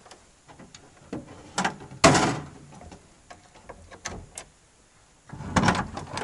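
Irregular knocks and clicks, with a short loud clatter about two seconds in and a louder run of knocks near the end.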